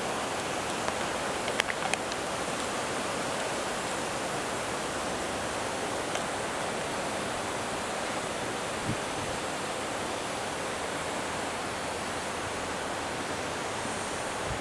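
Steady rush of running water from the park's stone water channels and a spouting stone basin, with a few brief clicks about one and a half to two seconds in.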